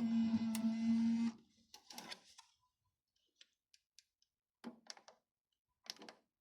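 Panasonic CQ-C1300AN car CD radio being switched over: a brief hum with hiss for about a second and a half, then a few faint short clicks.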